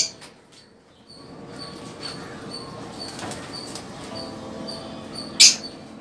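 Caged aviary birds: a faint high chirp repeats evenly about twice a second, and a single short, loud, high-pitched screech comes a little after five seconds in.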